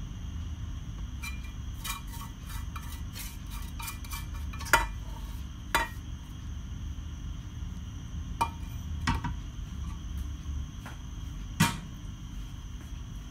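A spoon scraping and clinking against a nonstick frying pan and a ceramic baking dish, with a quick run of light clicks in the first few seconds and a few sharper knocks later; the loudest knocks come about halfway through and near the end. A steady low rumble runs underneath.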